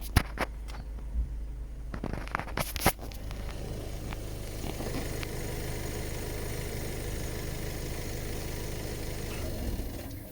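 Skoda Octavia 2.0 TDI four-cylinder diesel idling steadily. Several sharp knocks and clicks come in the first three seconds, then only the steady idle.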